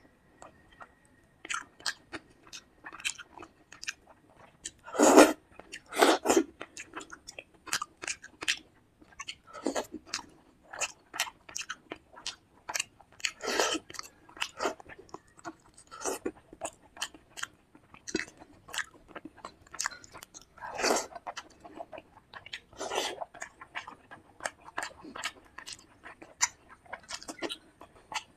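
Close-miked chewing of a meal of fish curry, fried fish, rice and salad: a steady run of small wet clicks and crackles, with about five louder crunchy bites along the way.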